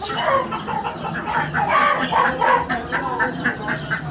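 Chickens clucking, with many short overlapping calls.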